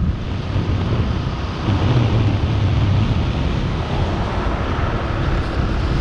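Steady rush of wind and road noise from a car driving along, with a low rumble underneath.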